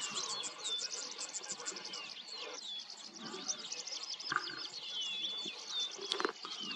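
Birds chirping and whistling in a dense, continuous chorus, with two short sharp cracks about four and six seconds in.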